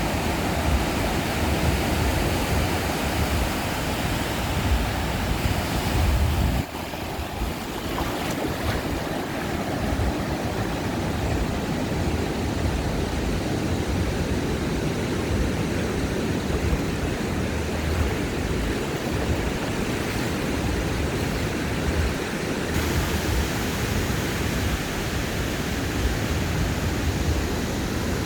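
Ocean surf washing onto a sandy beach, a steady rush of breaking waves with low wind rumble on the microphone. The sound drops off sharply for a moment about six and a half seconds in, then carries on.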